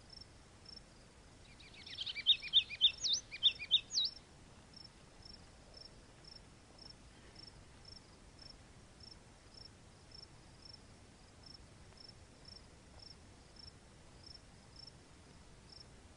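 A cricket chirping steadily in high, even pulses about twice a second. About two seconds in, a short run of loud, high squeaky calls that sweep up and down breaks in for two seconds, then only the cricket is left.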